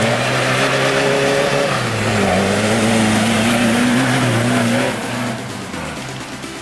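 Rally-raid car's engine running hard as it passes, its note dipping about two seconds in and then holding steady before fading away after about five seconds.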